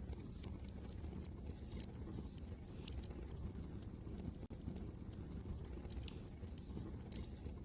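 Wood fire crackling in a fireplace, with irregular sharp pops several times a second, over a steady low rumble of wind.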